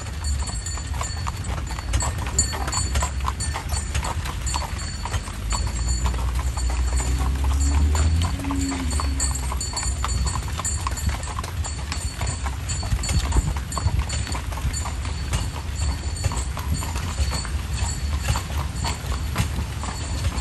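Carriage horse's hooves clip-clopping steadily on the road, over a steady low rumble.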